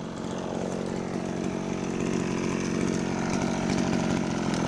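Mitsubishi TL231 brush cutter's small two-stroke engine running steadily, growing slightly louder over the few seconds.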